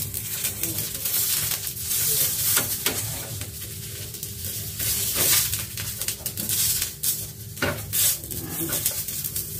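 Halved eggplants sizzling in a lightly oiled non-stick frying pan. Several sharp clicks and knocks come from metal tongs against the pan as the eggplants are turned.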